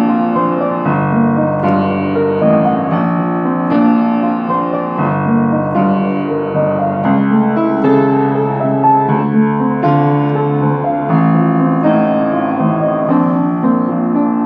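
Piano-sounding keyboard playing an instrumental interlude of sustained chords, changing about once a second.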